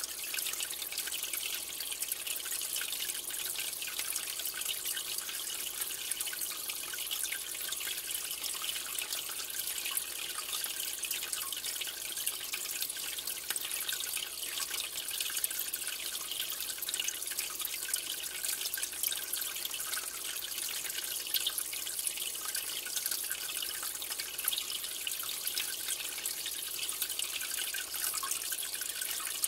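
Water in an aquarium trickling and splashing steadily, a continuous hiss dotted with many small drips.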